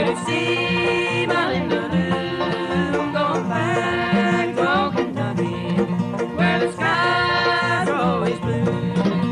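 Bluegrass band playing an up-tempo instrumental break, with five-string banjo picking over guitar, mandolin and bass.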